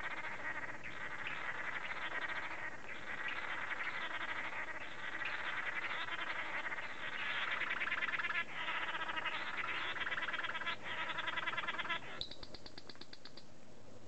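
Male blue manakins giving rapid, buzzy pulsed calls together during their courtship dance, with a few brief breaks. About twelve seconds in the chorus stops and a shorter, higher buzzing call follows.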